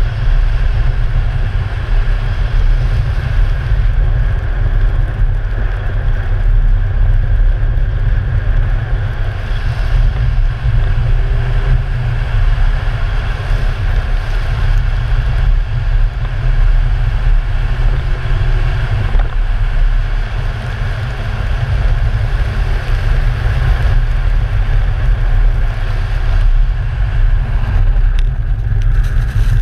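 Car driving at speed on a snow-covered track, heard through a camera mounted outside on the body: a loud, steady low rumble of wind buffeting the microphone mixed with tyre and road noise, the engine barely distinct.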